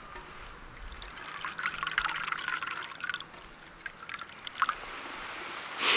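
Liquid pouring and dripping for a second or two, followed by a few sharp clicks.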